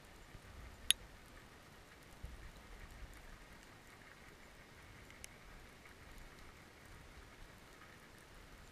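Faint underwater ambience as picked up by a camera in its housing: a low hiss and rumble with scattered small clicks and crackles, one sharper click about a second in.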